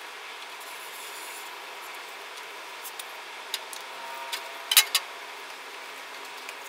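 A marker scraping lightly across a rusty steel sheet as a cut line is drawn. A little under five seconds in come a few sharp clicks, as the marker is capped and laid on a steel disc.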